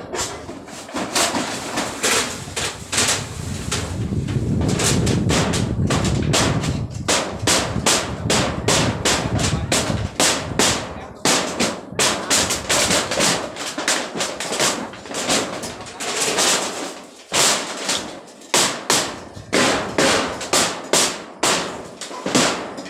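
Hand demolition of a workers' barracks: repeated hammer blows and bangs, with a denser rumbling clatter in the middle stretch and blows coming about two a second near the end.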